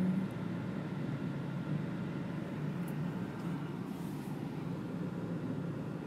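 Steady low hum of a car heard from inside the cabin while it is driven.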